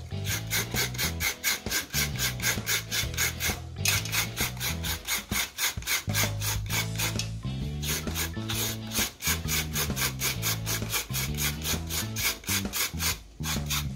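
Coconut meat scraped out of a half coconut shell with a hand scraper, in rhythmic rasping strokes about four a second, shredding the flesh. The strokes pause briefly twice.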